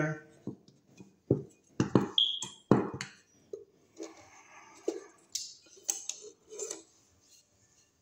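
Hand tools and wires clicking, clinking and scraping against a metal electrical box as an old receptacle's wiring is taken apart: a string of sharp irregular clicks, with one short ringing metallic ping about two seconds in.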